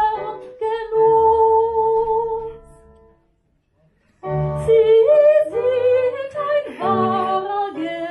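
A woman singing with instrumental accompaniment. She holds one long note, breaks off for about a second near the middle, then sings on.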